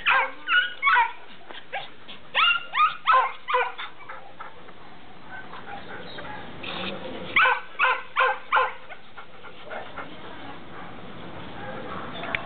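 A dog whining: short, high-pitched whines that fall in pitch, coming in three bouts of several each, near the start, about two seconds in and about seven seconds in, with quieter stretches between.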